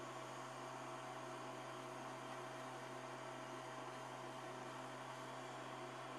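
Steady electrical hum with a faint higher tone over even hiss, unchanging throughout, with no distinct events.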